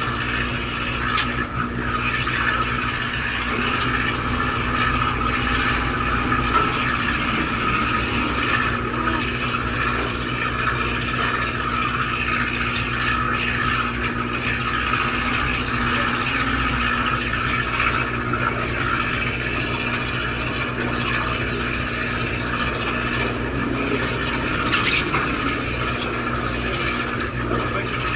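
Charter fishing boat's engine running steadily, a constant low drone with a steady hiss over it and a few faint clicks.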